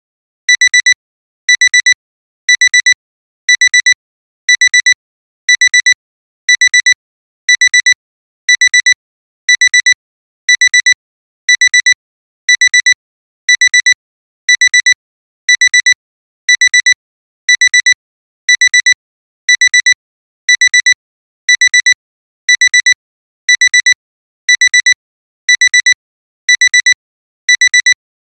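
Alarm-clock alarm beeping: a high-pitched electronic beep in short groups of quick beeps, about one group a second, the signal that the timer has run out.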